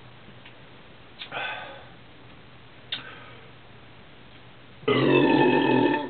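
A man belching: one long, loud burp lasting about a second near the end, brought up by gulping down beer.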